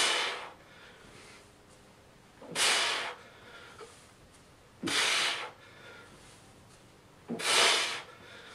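A man breathing hard through workout reps: a forceful breath out about every two and a half seconds, four in all, with softer breaths in between.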